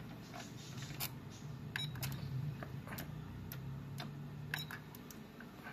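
Motorized flip-up front panel of a Victor UX-Z11WMD micro component MD system rising: a low motor hum from about a second in until near the end, with scattered sharp clicks from the gear train. The mechanism is slipping out of its groove and skipping a gear tooth, so the panel needs a push by hand to open fully.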